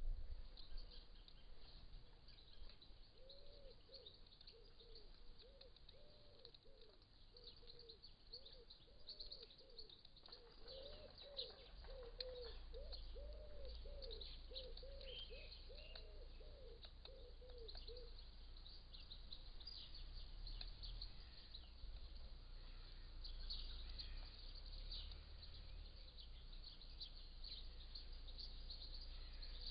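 Garden birds: small birds chirping and twittering high and faint throughout, with a pigeon cooing, a long run of short, low, rising-and-falling coos, from a few seconds in until a little past the middle.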